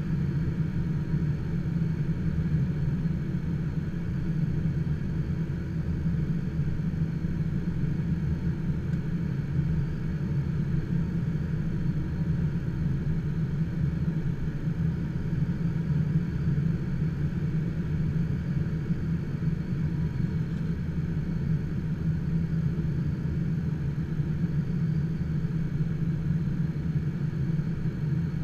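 Steady rush of airflow around the cockpit of an HK-36 Dimona motor glider gliding with its engine shut down and propeller stopped.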